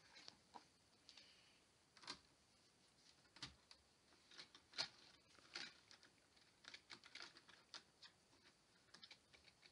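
Faint, irregular small plastic clicks and taps as model train coaches are handled, coupled and set on the track, with the sharpest click a little before halfway.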